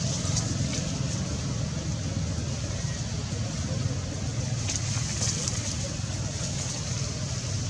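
Steady low hum of a running motor vehicle engine, with a steady high hiss above it.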